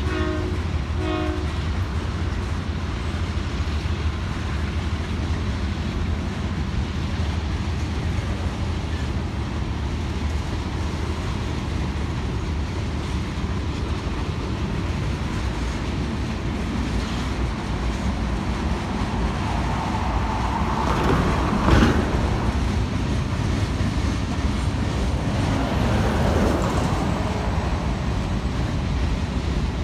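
Loaded freight cars rolling past on the rails: a steady rumble of steel wheels and clattering trucks, with a few short horn notes near the start. About two-thirds of the way through, a brief squeal builds and ends in a sharp knock.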